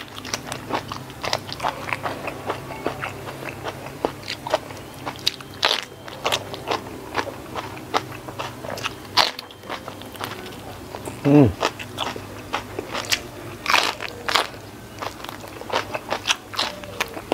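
Close-miked mouth sounds of eating rice with sambal and boiled pak choy by hand: bites and wet chewing, many sharp clicks several times a second. About two-thirds of the way through comes a short falling hum from the eater, the loudest sound here.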